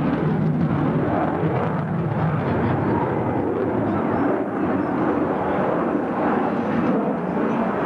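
Military jet fighter flying overhead in a display, its engine noise a loud, steady rush.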